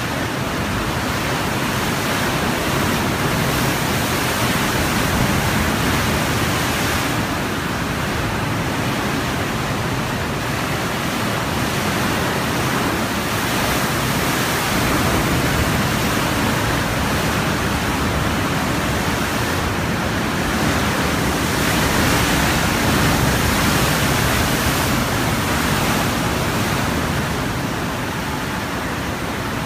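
Sea waves surging into a rock sea cave, a loud continuous rush of churning white water that swells and eases as each surge comes in.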